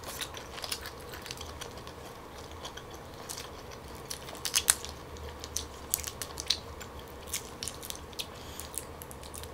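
Close-miked crackling and clicking of a cooked tiger prawn's shell being pulled apart and peeled by hand, with soft chewing; the small cracks come in irregular clusters, busiest about midway.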